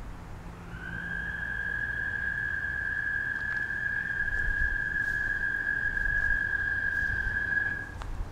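A toad trilling: one long, very loud, high-pitched call that slides up briefly at the start, then holds steady for about seven seconds before stopping abruptly.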